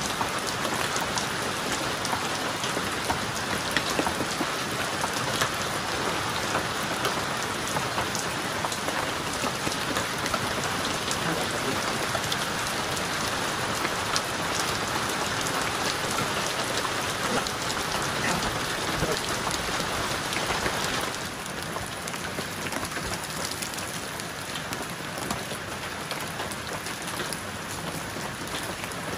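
Steady rain falling, a close patter of many small drops over an even hiss. It steps down a little in level about three-quarters of the way through.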